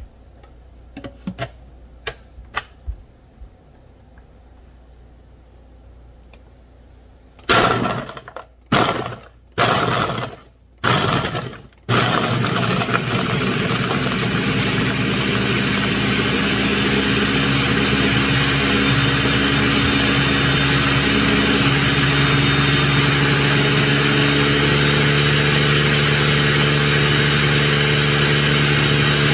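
Countertop blender crushing ice cubes. A few light clicks come first as the lid is fitted. Then four short pulses of the motor chopping the ice, and from about twelve seconds in it runs continuously, grinding the cubes down to fine, snow-like crushed ice.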